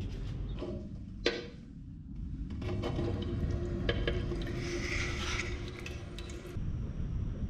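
Tap water running into a stainless steel sink as a toothbrush is rinsed under the stream. It starts about two and a half seconds in and stops shortly before the end, with a steady hum alongside. A single sharp click comes a little over a second in.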